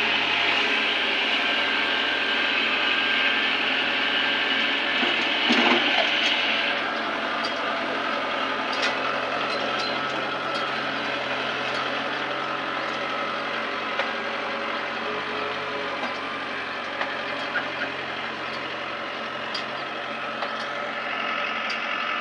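Combine harvester's diesel engine running steadily, with a loud hiss over it that stops about six seconds in, a brief louder burst just before, and scattered light clicks and knocks later.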